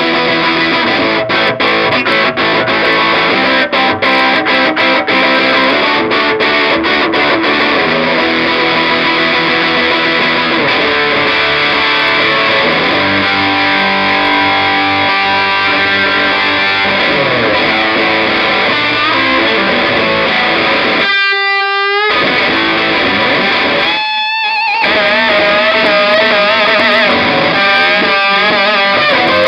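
Electric guitar played through a VS Audio Platinum, a Silver Jubilee-style overdrive pedal, into a Marshall Origin 20 amp: driven chords and riffs, then held single notes bent with vibrato, a little louder over the last few seconds.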